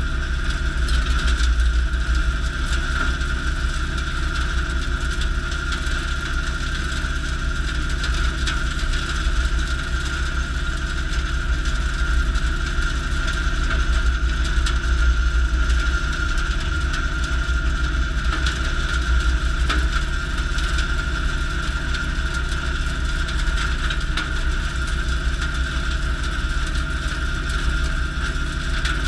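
Valtra A95 tractor's diesel engine running steadily under load while powering a Woods BB84X rotary cutter through brush. A constant high whine sits over the low engine rumble.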